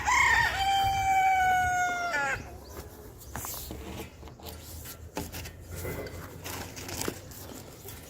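A rooster crows once at the start, a single call of about two and a half seconds ending in a long held note. It is followed by quieter scattered clicks and rustles.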